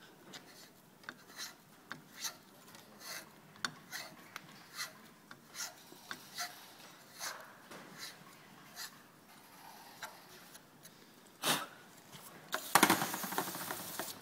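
Time-Sert countersink cutter turned by hand in a metal bracket hole, cutting the countersink in short, irregular scraping strokes. A louder, continuous scrape comes near the end.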